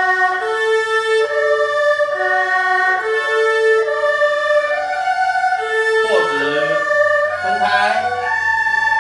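Erhu bowed through a broken-chord sequence exercise: held notes stepping up and down through chord tones in a repeating pattern. A couple of short pitch slides come near the end.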